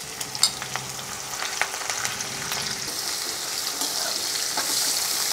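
Freshly added sliced onions sizzling in hot oil with whole spices in a metal kadhai, being fried towards golden. A metal spoon stirs them with scattered clicks and scrapes against the pan, and the sizzle grows steadily louder.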